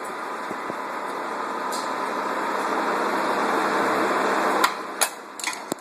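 A steady hiss grows slightly louder, then cuts off suddenly near the end, followed by a few sharp clicks and knocks.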